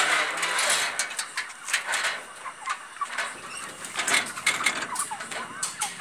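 Wire chicken crates rattling and clattering as broiler chickens are handled, with a loud rustling burst at the start. A few faint chicken squawks come through.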